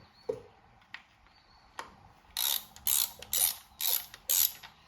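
Hand ratchet with a T27 Torx bit clicking in short bursts, about two a second, as the clutch derby cover screws are run in, after a couple of single clicks.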